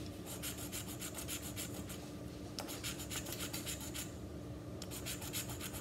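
Scratch-off lottery ticket being scratched, its coating rubbed away in quick back-and-forth strokes. The scratching comes in three spells with short pauses between them.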